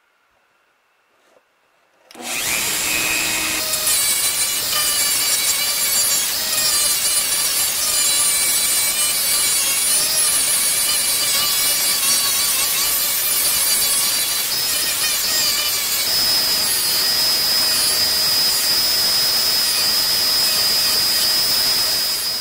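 Handheld rotary tool switching on about two seconds in, its small abrasive wheel grinding against the crimped edge of a metal bottle cap held in a clamp. In the last several seconds a steady high whine comes through, with the wheel spinning free, before the tool stops at the very end.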